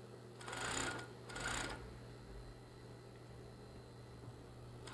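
Coverstitch machine stitching in two short runs, one about half a second in and another around a second and a half in, sewing down waistband elastic. A steady low hum lies under it throughout.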